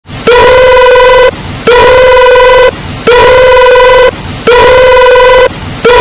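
A man humming a loud, buzzy, steady note in repeated beeps to imitate a phone's electronic tone. Each beep lasts about a second, with short gaps, and they repeat about every 1.4 seconds.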